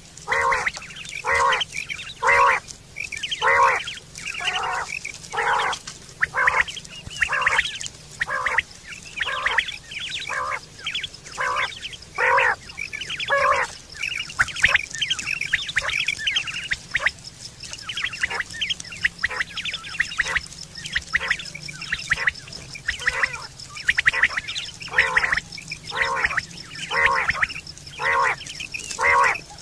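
Common quail calling over and over in a quick series of short, nasal-sounding notes, a little more than one a second with small irregular gaps, as used to lure quail at night. A faint steady high tone runs behind the calls.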